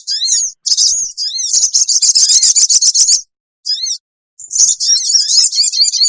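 Olive-backed sunbird (sogon) giving rapid, high-pitched shrill chirps and trills in bursts, played as a lure call to draw wild sogon. A fast trill runs from about one and a half to three seconds in, then a pause with one short call, then more trilling from about four and a half seconds.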